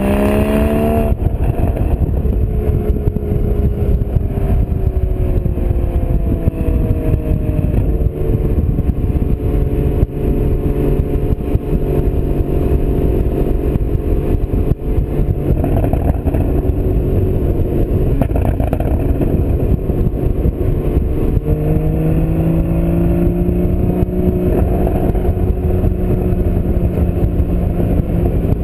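Porsche Boxster Spyder's 3.8-litre flat-six running on the move. Its note climbs about a second in, eases down a few seconds later and climbs again after about twenty seconds, over a steady low rumble.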